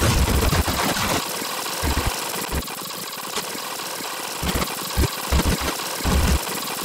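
Sped-up synthesizer audio from DAW playback: a harsh, steady buzzing noise broken by irregular short low thumps.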